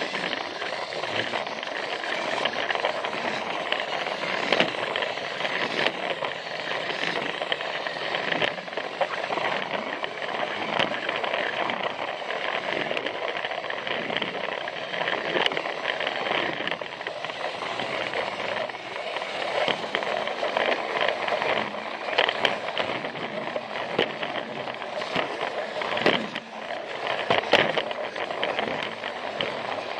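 Plarail battery-powered toy train running along plastic track: a steady whir of its small motor and gears, with irregular clicks and clacks from the wheels on the track.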